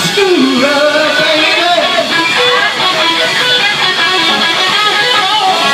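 Live rock band playing, with electric guitar to the fore.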